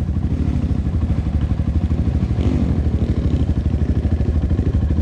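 Honda CRF150L trail motorcycle's single-cylinder four-stroke engine running steadily at low speed, with a rapid even pulsing beat.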